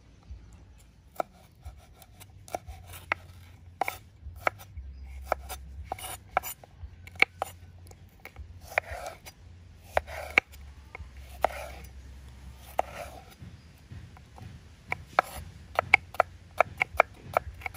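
Kitchen knife dicing red bell pepper on a wooden cutting board: a run of sharp, irregular knife taps on the board, with softer slicing scrapes between them and quicker taps near the end.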